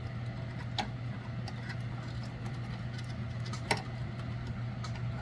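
A few small clicks and taps from pushing a tiny front-panel LED connector onto a motherboard's header pins, the loudest click near the end, over a steady low hum.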